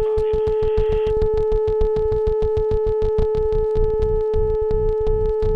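A steady droning tone over a rapid, uneven train of low thumps: the AH-64 Apache helicopter's cockpit noise as carried on its intercom/radio recording.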